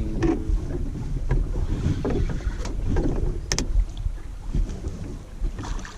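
Wind buffeting the microphone on a small fishing boat, an uneven low rumble, with scattered knocks and clatter, the sharpest about three and a half seconds in.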